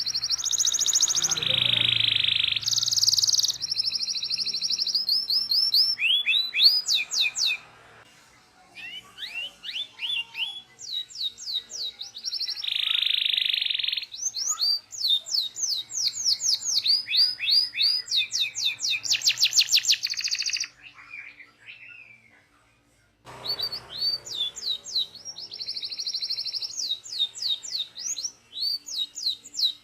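Domestic canary singing a long rolling song of fast trills and repeated chirping notes, mixed with buzzy phrases. The song breaks off for about two seconds about two-thirds of the way through, then starts again.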